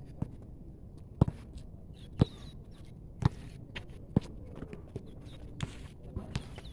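A basketball bouncing on an outdoor concrete court, sharp single bounces at roughly one-second intervals as it is dribbled.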